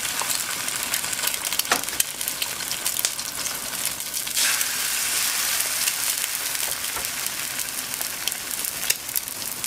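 Eggs frying in olive oil in a nonstick pan: a steady sizzle dotted with small crackles. The sizzle grows louder about four and a half seconds in, as another raw egg goes into the hot pan.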